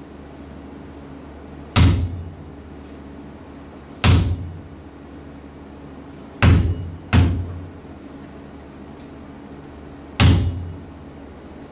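Five heavy, echoing thuds at uneven intervals, each ringing away over about half a second, over a steady low hum. Two of them fall close together in the middle.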